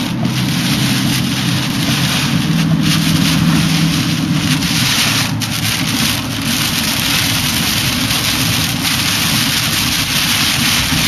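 Heavy wind-driven rain on a moving car's windshield and body, heard from inside the cabin as a loud, steady rush over engine and road rumble. A low steady hum sits under it for the first half.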